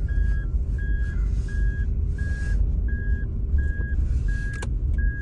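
A reversing vehicle's backup alarm beeping evenly, a single steady tone about once every 0.7 seconds, over a constant low rumble, with a sharp click near the end.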